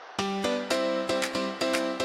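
Song intro: strummed guitar chords enter with a steady rhythm after a soft swell of noise.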